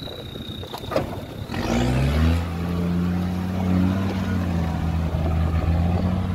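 Land Rover Discovery 2 Td5's five-cylinder turbodiesel revving up about one and a half seconds in and then holding steady revs under load as it drives through deep mud. A single sharp knock comes about a second in, before the revs rise.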